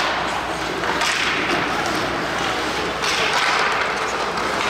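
Ice hockey game noise in an arena: a steady, noisy wash of play on the ice, swelling about a second in and again about three seconds in, with scattered knocks.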